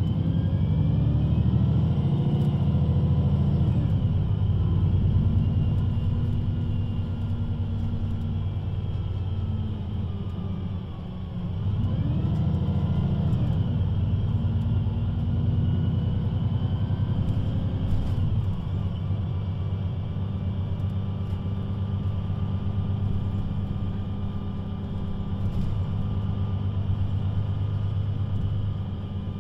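Diesel engine of a VDL Citea LLE 120 city bus with a Voith automatic gearbox, pulling away and accelerating through the gears with rising engine pitch, easing off for a moment about eleven seconds in, accelerating again through the gears, then running more steadily toward the end.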